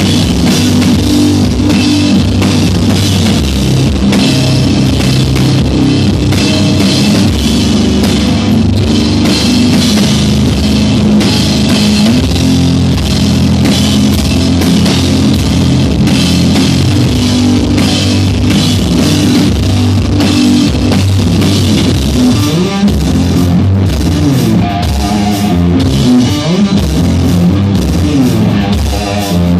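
Live sludge metal band playing loud: heavily distorted electric guitar over a pounding drum kit.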